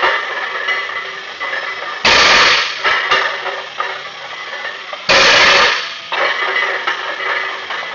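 A plate-loaded barbell is set down on the gym floor mats between deadlift reps: two loud crashes of the plates, each lasting about half a second, one about two seconds in and one about five seconds in. Faint music plays underneath.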